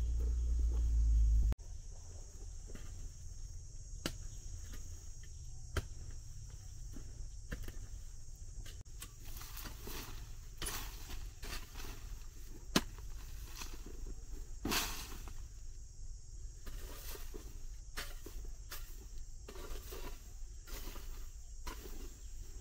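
Rural outdoor ambience: a steady high buzz of insects, with scattered clicks, knocks and rustling. A loud low rumble cuts off suddenly about a second and a half in.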